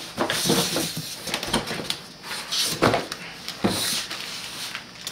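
Packaging rustling in several bursts, with a couple of sharp knocks about three seconds in, as cables are pulled out of a product box during unboxing.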